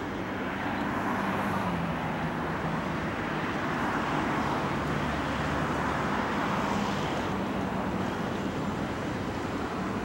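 Model F-14 jet's engine heard in flight, a steady rushing jet noise that swells as the aircraft passes and then eases off.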